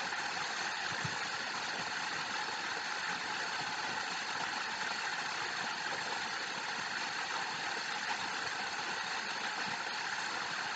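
Steady, even background hiss with no speech, holding at one level throughout.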